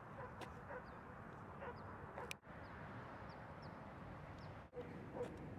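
Faint short bird calls over a steady outdoor background hiss: a few quick high chirps in the middle and some lower calls, with a couple of sharp clicks. The sound cuts out abruptly twice.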